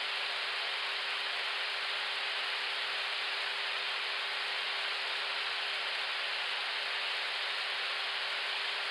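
Steady rushing hiss of airflow on the Airbus A321neo's flight deck in high-speed cruise, with a constant hum underneath.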